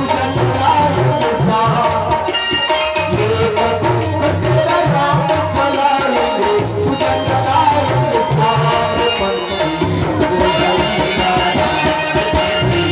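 Instrumental passage of Chhattisgarhi ramdhuni devotional music: tabla-type hand drums keep a steady rhythm under a sustained melody line.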